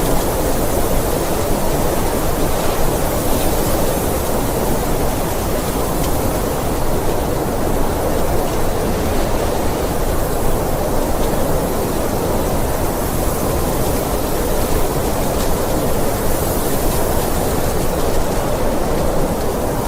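Blizzard wind: an even, steady rushing noise with no distinct gusts or breaks.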